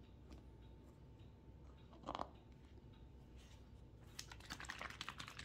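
Faint handling of a plastic squeeze bottle over paper towels: a short rub about two seconds in, then light crackling and clicking from about four seconds on.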